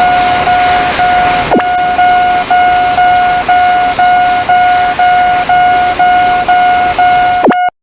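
Railroad crossing warning signal ringing about twice a second, each ding a steady pitched tone with overtones. For the first second and a half it sounds over a rushing noise, and it cuts off abruptly near the end.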